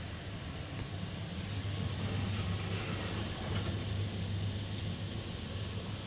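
Steady low mechanical hum and rumble with a few faint clicks as a Schindler Miconic V elevator car arrives at the landing.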